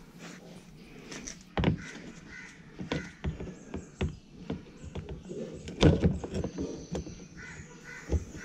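Scattered sharp plastic clicks and knocks as a clip remover prises out the push-in plastic retaining clips of a Ford Figo Aspire's lower front bumper extension, with birds calling in the background.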